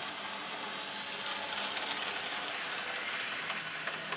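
N-scale model locomotives running on the track: a steady whirring of the small motors and gears with faint ticking of wheels on the rails.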